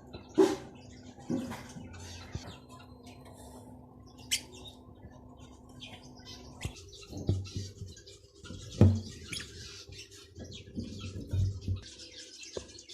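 Pet lovebirds chirping now and then, with scattered clicks and scratching and a few sharp knocks, the loudest about half a second in and near nine seconds.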